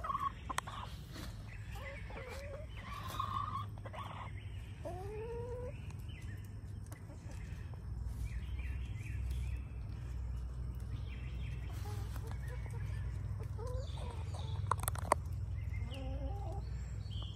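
Backyard hens clucking and calling while foraging, with a few drawn-out calls that rise and fall in pitch, over a steady low rumble.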